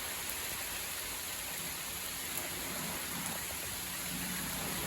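Steady rain falling in a thunderstorm, an even hiss with no thunder clap standing out.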